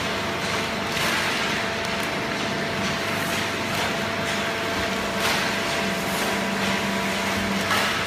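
Fully automatic horizontal hydraulic baler and its inclined conveyor running: a steady machine hum with several held tones, broken by brief rattles every second or two.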